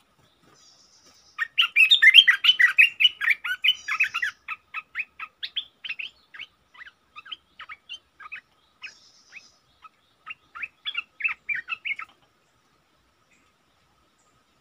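Olive-winged bulbul giving a rapid run of chattering call notes: a dense, loud burst for the first few seconds, then single notes spaced a few per second, a second quick flurry near the end, then it stops.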